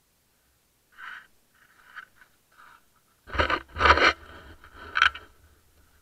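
Boots crunching a few times on snow close to a windski-mounted camera, then the windski is grabbed and moved. This gives loud scraping and handling knocks on the mount for about two seconds, stopping a little after five seconds in.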